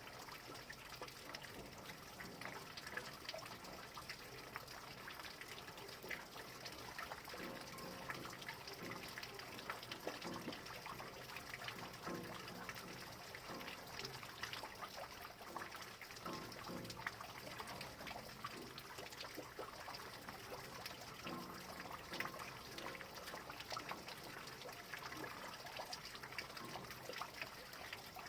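Rain falling steadily, with many small drops ticking and water trickling and dripping.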